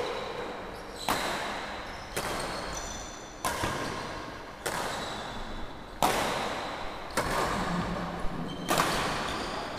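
Badminton rackets striking a shuttlecock in a rally, about seven sharp hits a second or so apart, each echoing through a large hall.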